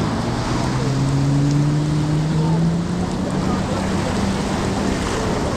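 An engine running with a low hum that rises slowly in pitch over the first three seconds and then holds steady, over a constant wash of surf and wind.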